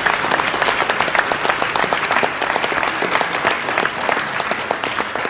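Church congregation applauding, a dense patter of hand claps, some close by, easing off slightly near the end.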